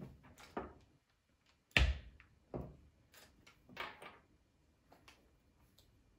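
Plastic Lego pieces being handled, with a scatter of small clicks and knocks; the loudest knock comes about two seconds in, with a few softer ones after it.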